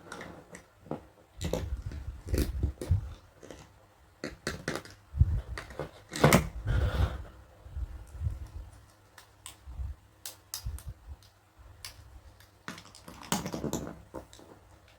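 Small plastic toy pieces and packaging being handled, with irregular clicks, taps and short rustles coming in clusters.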